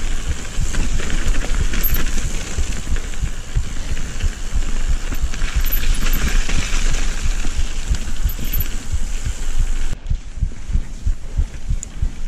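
Mountain bike ridden down a dirt singletrack: a steady rushing hiss of tyres and wind over the camera, with a constant run of knocks and rattles as the bike hits bumps and roots. About ten seconds in the hiss drops away suddenly, leaving the low knocks.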